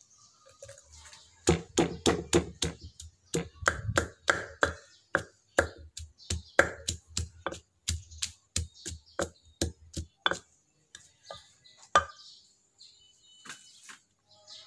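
Pestle pounding peeled garlic cloves in a clay mortar: a run of dull thuds, about three a second, starting about a second and a half in and stopping near ten seconds, with one last strike a little later.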